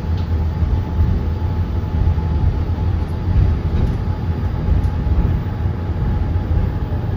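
Wolmi Sea Train monorail car running along its elevated track, heard from inside the car: a steady low rumble with a faint steady whine above it.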